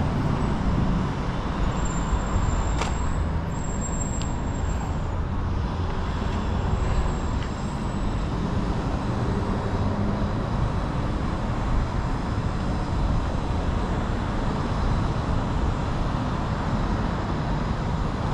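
Steady road traffic noise from a busy multi-lane road, with cars and trucks driving past.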